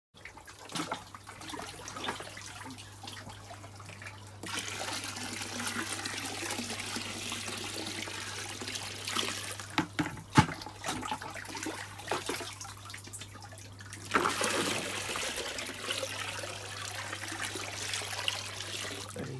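Water splashing and running in a tub of water, louder for a few seconds at a time, over a steady low hum, with a sharp knock about ten seconds in.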